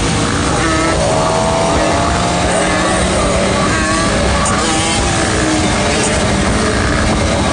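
Motorcycle riding at highway speed: steady wind rush over the microphone with engine noise underneath. An engine note climbs slowly in pitch from about one to three seconds in, as a bike accelerates.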